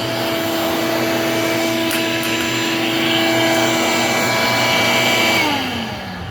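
Ridgid WD12460 12-gallon, 5.0 peak horsepower wet/dry vacuum running steadily with a motor whine and airflow hiss. About five seconds in it is switched off, and the whine falls in pitch and fades as the motor spins down.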